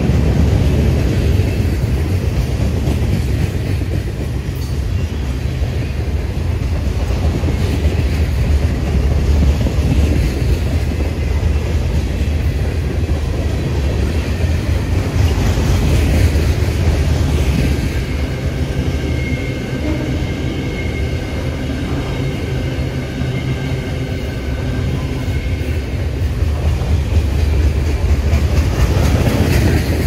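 Freight cars rolling past close by: a steady heavy rumble of steel wheels on rail with clickety-clack. A faint high squeal sounds about two-thirds of the way through.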